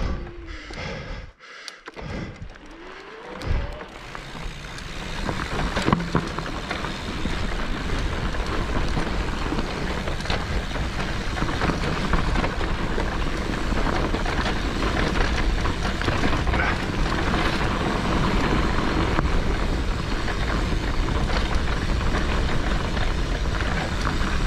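Mountain bike moving along a dirt trail: a steady rushing noise of wind on the microphone and tyres rolling. It builds in about four seconds in, after a quieter start.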